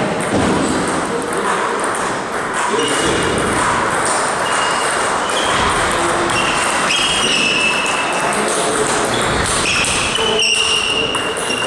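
Table tennis play in a large hall: a celluloid ball clicking off bats and the table in rallies, over the steady noise of the hall and other tables. A few brief high squeaks come through, about three seconds in, around seven seconds and again near the end.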